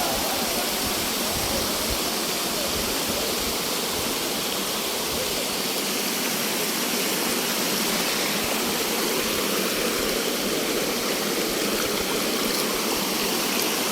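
Rushing stream water, a steady, even rush of water flowing over rocks.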